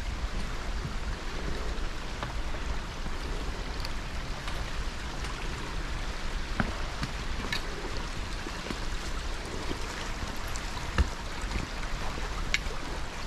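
A small rocky creek running steadily, with scattered footsteps and clicks from people walking over leaf litter and stones.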